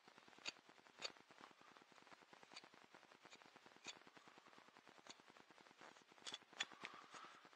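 Faint, short clicks of a carving knife slicing thin cuts from the edge of a small wooden paddle, about eight in all, with a quick cluster a little after six seconds.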